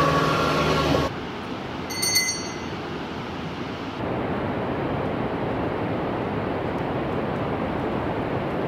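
A bus passes close by in the first second, with a steady held tone over its engine. It cuts to a steady, even rushing noise, with a brief high ringing near two seconds, that grows a little louder about four seconds in.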